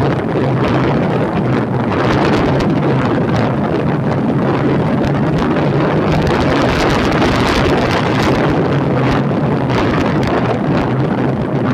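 Motorcycle riding along at a steady speed: the engine's steady hum buried under heavy wind noise buffeting the microphone.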